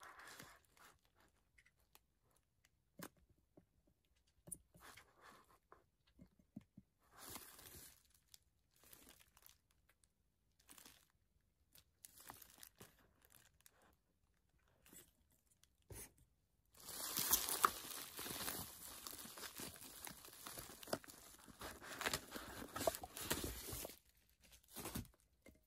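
Faint rustling and crinkling of plastic wrapping with light taps as candle jars with metal lids are handled and unpacked, then a longer, louder stretch of plastic crinkling and tearing for about seven seconds in the last third.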